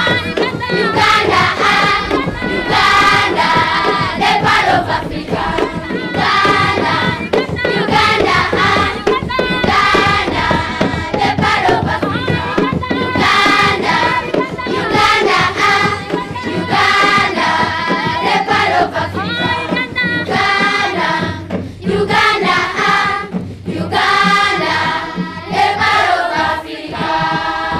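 A children's choir singing together, many young voices in unison.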